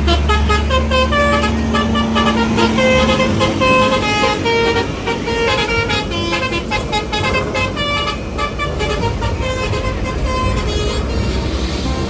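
A bus's "telolet" multi-tone air horn playing a quick tune of short stepping notes for about ten seconds, over the steady low hum of the bus's engine.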